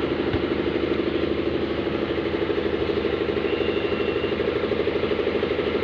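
An engine running steadily at idle, with an even, fast pulsing beat.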